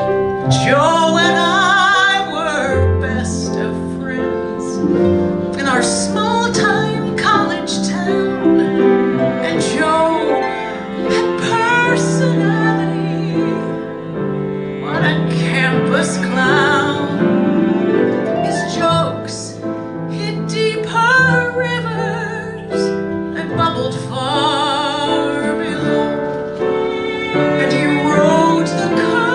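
A woman singing a show tune into a microphone, her held notes wavering with vibrato, over piano accompaniment.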